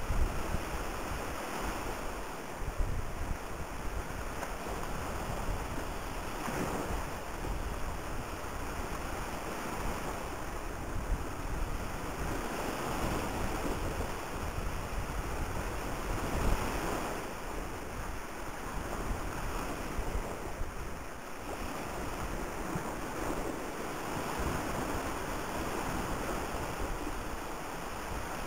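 Wind buffeting the microphone over the steady rush of choppy sea water along a ferry's side, with a few brief, sharper gusts.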